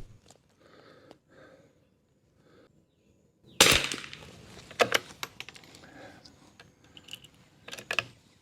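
A single shot from a Kimber 82G .22 LR bolt-action target rifle about three and a half seconds in, a sharp crack that dies away quickly, followed by a few smaller sharp clicks and knocks.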